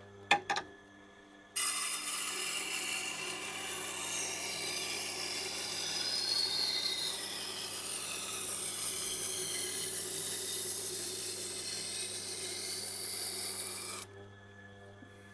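Knife blade being ground on the turning stone of a Tormek wet grinder: a steady grinding hiss with shifting whistling tones. It starts after a couple of light knocks and cuts off suddenly over a second before the end, over the grinder's low motor hum.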